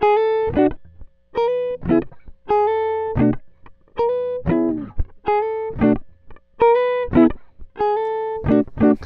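Intro music: a short phrase repeating about once a second, each a held note followed by a quick run of notes.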